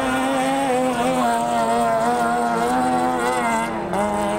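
Speedboat engine running steadily under power, its pitch wavering slightly and dipping briefly near the end.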